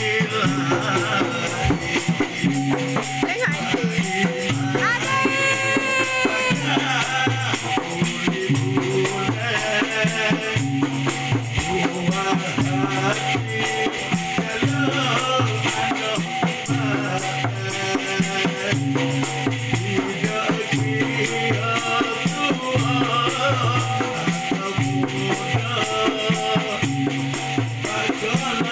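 Dikir music: a voice singing over a steady, repeating hand-drum rhythm, with maracas shaking throughout.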